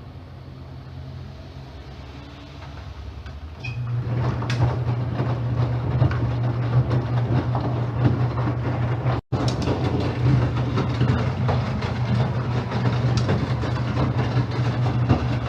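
Enxuta washing machine running: a steady low motor hum with a busy rattle, getting louder about four seconds in and breaking off for an instant a little past halfway.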